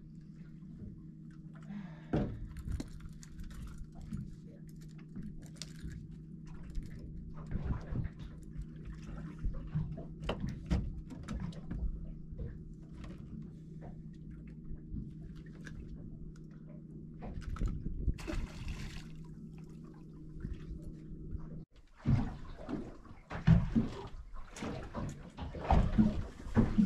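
Water sloshing against a small boat's hull over a steady low hum, with scattered knocks and clicks. Near the end the hum stops abruptly and louder, irregular splashing takes over.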